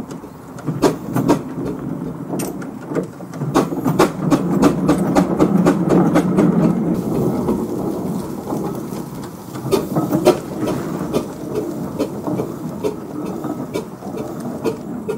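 1916 Ransomes, Sims & Jefferies steam traction engine driving past at close range, a rumble of its running gear with irregular sharp knocks and clanks from the engine and gearing. The rumble is loudest about five to seven seconds in as the rear wheel passes close, then eases as the engine moves away.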